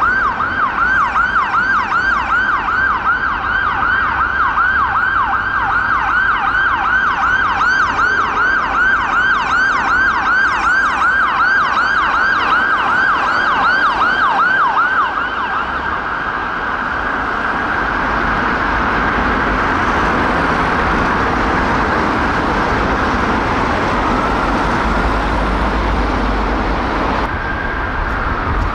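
UK ambulance siren on a fast yelp from a Mercedes-Benz Sprinter ambulance, sweeping rapidly up and down in pitch over and over. About fifteen seconds in it drops a little in level and blurs into a steadier, smeared wail over traffic noise and a low engine rumble.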